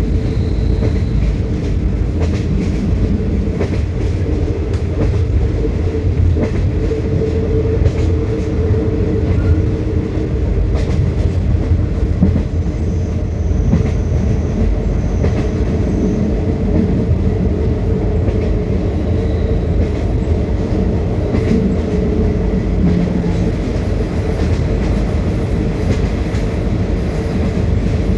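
Passenger train running steadily at speed, heard from an open coach window: a continuous low rumble of wheels on the rails with faint, scattered clicks.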